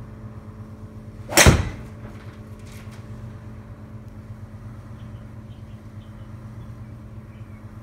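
A golf club strikes the ball in one loud, sharp smack about one and a half seconds in, merging with the ball hitting the simulator's impact screen. A much fainter tap follows about a second later, over a steady low hum.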